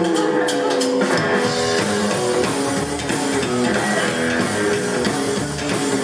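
Live rockabilly band playing an instrumental passage: electric guitar picking a run of notes over upright double bass and drum kit, with cymbal hits mostly in the first second or so.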